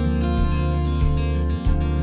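Instrumental background music led by plucked acoustic guitar over a steady low bass.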